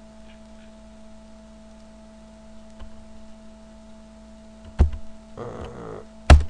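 Steady electrical hum under a few faint clicks, then two loud sharp clicks with a low thump, about a second and a half apart, near the end, from desk-top computer use. Between the two loud clicks comes a short hummed murmur from a voice.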